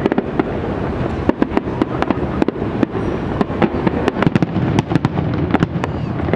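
Fireworks display: a rapid, irregular series of sharp bangs and crackles from shells and comets bursting.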